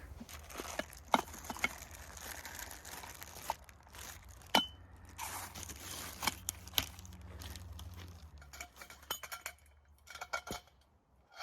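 Hard objects being handled: light clinks and knocks, one with a brief metallic ring about four and a half seconds in.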